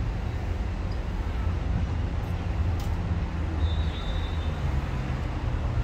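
Steady low background rumble of outdoor ambient noise, with a faint brief high tone about two-thirds of the way through.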